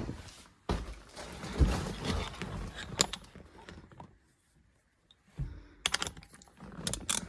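Sockets and a ratchet being handled and fitted together: rustling, light metal rattles and sharp clicks, with a short pause in the middle and a cluster of clicks near the end.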